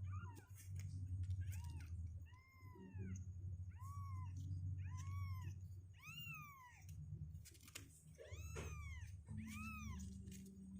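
Two-week-old kittens mewing over and over, about a dozen short calls that each rise and fall in pitch, with a steady low hum underneath.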